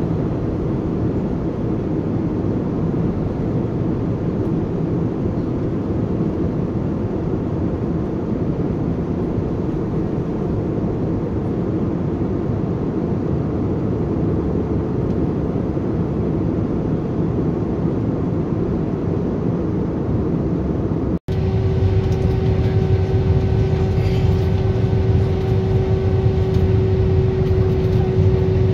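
Steady jet-engine and airflow noise heard inside an airliner's passenger cabin. About two-thirds of the way through, a cut brings a louder stretch with a steady whining engine tone on top, inside an Airbus A319's cabin.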